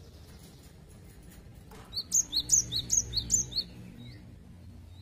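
Cinereous tit singing its fast 'wucit wucit' song: about five quick two-note phrases, each a lower whistle then a higher one, starting about two seconds in and lasting under two seconds.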